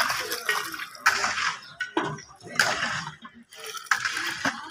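Water splashing from a steel jug into a well of flour in a large metal basin, in several short pours about a second apart, as the flour is wetted to start a dough for rumali roti.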